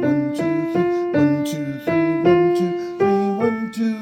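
Piano played at a fast tempo in a steady three-beat rhythm, a low bass note and higher chord notes struck on each beat, about three beats a second.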